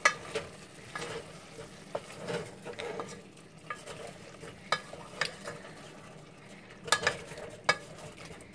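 Wooden spoon stirring chicken pieces in a steel pot, knocking and scraping irregularly against the metal sides, with the chicken frying in the spices underneath. The sharpest knocks come right at the start and twice around seven seconds in.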